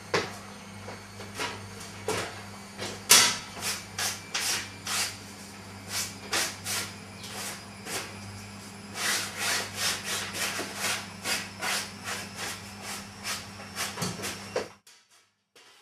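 Irregular rubbing and scraping strokes, one or two a second, over a steady low hum; both cut off suddenly near the end.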